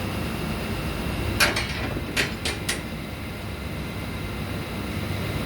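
Drilling rig machinery running with a steady low rumble, with a quick run of four sharp metal clanks that ring briefly, about a second and a half to three seconds in.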